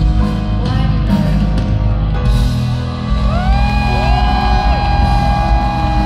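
Live pop-rock band music with a heavy bass and drum beat and a female lead vocalist singing. About three seconds in, a voice slides up into a long held note.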